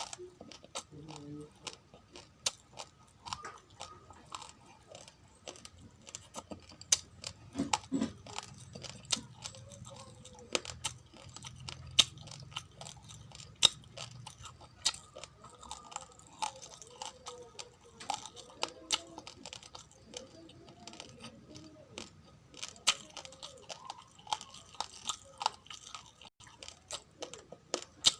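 Raw, uncooked rice grains being chewed and crunched close to the microphone, with many sharp, irregular cracks throughout.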